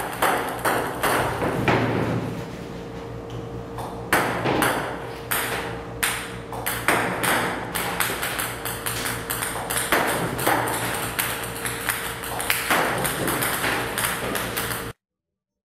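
Table-tennis balls fired by a table-tennis robot ball machine, clicking rapidly against the table and net, several a second, over a steady hum. The clicking cuts off suddenly near the end.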